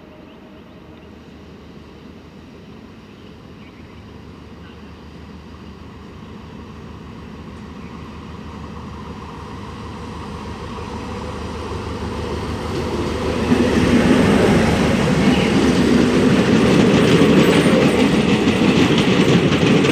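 Train approaching along the track, its rumble growing steadily louder, then passing close and loud from about two-thirds in, with the clatter of its wheels on the rails.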